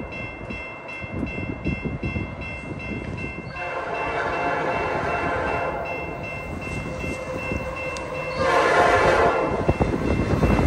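Nathan Airchime P5 horn on an approaching CN SD75I diesel locomotive, sounding two long blasts: the first about three and a half seconds in, lasting some two and a half seconds, and a second, louder one starting about eight and a half seconds in.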